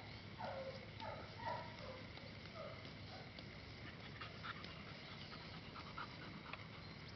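English Setter puppy whimpering: a run of short whines, each falling in pitch, in the first three seconds, then faint scattered clicks.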